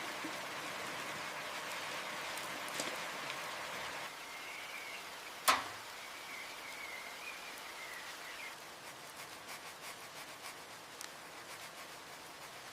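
Steady rain hiss. About five and a half seconds in comes one sharp snap, and a faint wavering high call runs for a few seconds around it. A faint rapid ticking comes in near the end.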